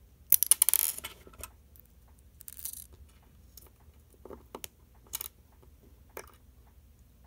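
Small metal parts of a KeyBar key organiser (washers, keys and plates) clinking as they are handled: a quick rattle of clinks at the start, then a few separate clicks.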